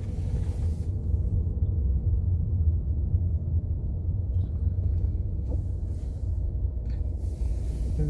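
Steady low rumble of a car being driven, engine and road noise heard from inside the cabin.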